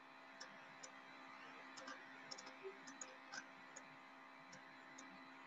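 Faint, scattered light ticks of a stylus tapping on a drawing tablet as lines are drawn, about a dozen of them unevenly spaced, over a low steady hiss.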